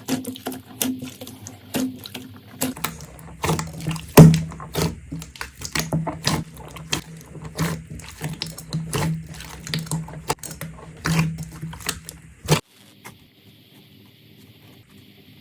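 Slime being squeezed and pressed by hand: a quick, irregular run of wet squelches and crackling pops that stops suddenly about twelve and a half seconds in.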